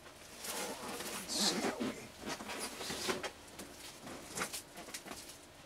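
Handling noise of a wrapped sewing machine on a styrofoam base being set into a plastic tote: irregular rustling and scraping of the packing material with a few knocks and short squeaks, loudest about a second and a half in.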